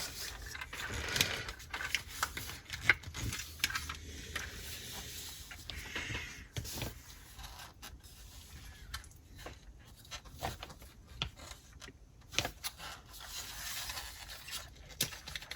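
Hands handling a plastic LEGO boat model and its parts, with scattered light clicks and rubbing of plastic.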